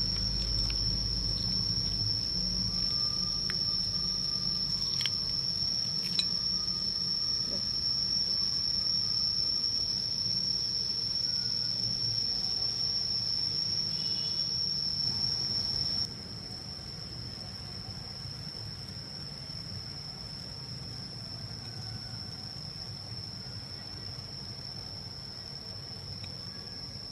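A continuous high-pitched insect trill with a faint low hum underneath; the whole sound drops in level about sixteen seconds in. A few faint clicks come in the first seven seconds.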